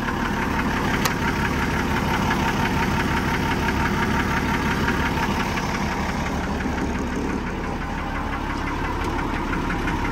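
Mercedes-Benz Unimog 416's six-cylinder diesel engine idling steadily, with a single sharp click about a second in.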